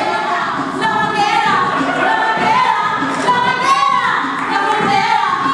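Music with singing, at a steady loud level, accompanying a dance routine.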